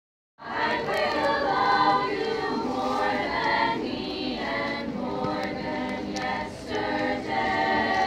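Teenage girls' choir singing a cappella in several parts, the singing starting about half a second in.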